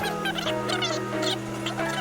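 Background music with held bass notes that change every second or so, and short, quick chirping sounds above them.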